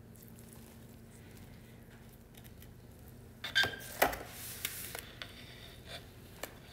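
Quiet room, then from about three and a half seconds in a few soft metal clicks and scrapes, with a sharper knock about four seconds in, as a rotisserie fork is slid along the metal spit and pushed into a raw prime rib resting on a metal sheet pan.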